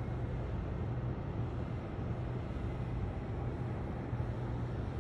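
Steady low rumble of city ambience with distant traffic and a constant low hum.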